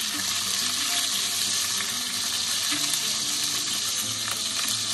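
Olive oil and beef juices sizzling steadily in a hot cast iron pan after a batch of beef chunks has been seared.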